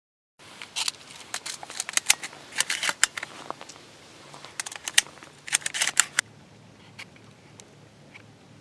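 An irregular string of sharp clicks and rustles, like something being handled close to the microphone, stopping about six seconds in and leaving a quieter steady hiss with a faint low hum.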